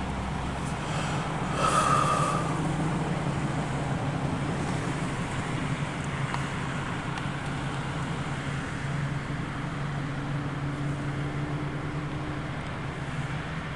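Steady low engine rumble, with a brief higher-pitched sound about two seconds in.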